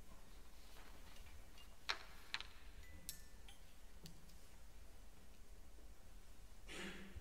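Quiet concert-hall room tone with a steady low hum, broken by two sharp clicks about two seconds in and a brief rustle near the end.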